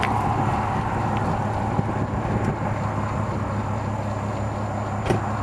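2004 VW R32's VR6 engine idling steadily through a full Billy Boat exhaust with USP test pipe and high-flow cats. A car door shuts about five seconds in.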